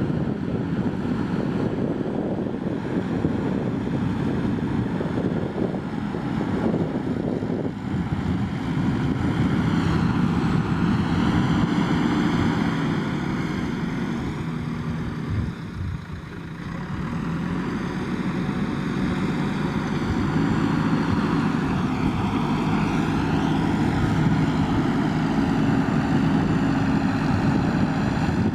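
JCB backhoe loader's diesel engine working under load, its revs rising and falling. About halfway through the revs dip briefly, then pick up again.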